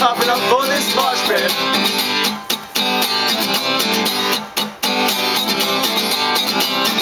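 Acoustic guitar strummed in a steady rhythm, with a male voice singing over it for the first second or so. The strumming breaks off briefly twice.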